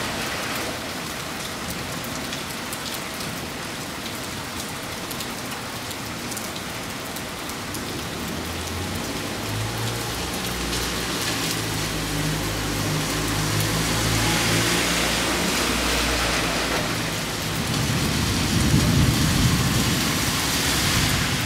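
Rain falling steadily during a thunderstorm, a continuous hiss of drops on the street. From about nine seconds in a low droning rumble builds beneath it, and a deeper rumble of thunder swells to the loudest point near the end.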